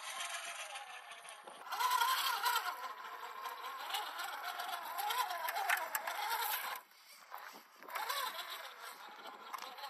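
Electric drive motor and gears of a 1/10-scale RC rock crawler whining, the pitch rising and falling with the throttle, with small clicks and scrapes. The whine drops away for about a second, some seven seconds in.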